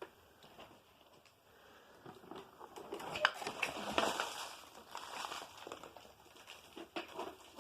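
Handling noises from an old Hoover Convertible upright vacuum being opened up and inspected by hand: irregular clicks, small knocks and rustling, busiest in the middle. The vacuum's motor is not running.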